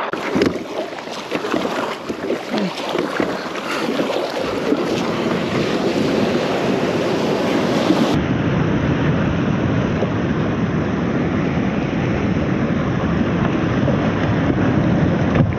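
Wind buffeting the microphone and water rushing past a moving boat running across the bay. About halfway through the sound changes abruptly to a heavier, lower rumble.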